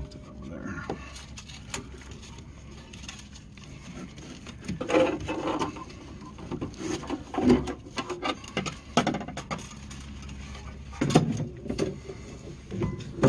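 Scattered knocks, scrapes and rustles of a cast-iron brake caliper being handled and hung on a wire hanger by gloved hands, over a steady low hum.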